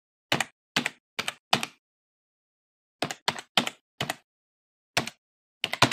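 Computer keyboard keystrokes: about a dozen single key presses at an uneven pace, in short runs with pauses between them, each a sharp click.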